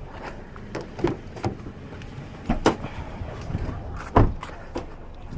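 Scattered knocks and clicks over a steady low background, the loudest about four seconds in, with a faint high-pitched whine in the first second and a half.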